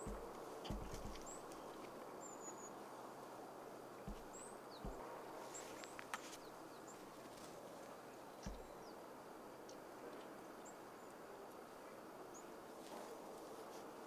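Japanese tit giving short, very high, thin call notes, scattered through, over a steady low background hiss. A few dull low bumps sound near the start, around 4 and 5 seconds in, and again past the middle.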